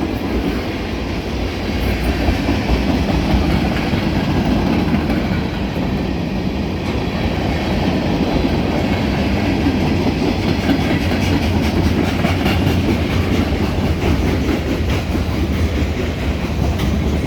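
Freight train cars rolling past close by: a steady, loud rumble of steel wheels on rail, with wheels clacking over the rail joints.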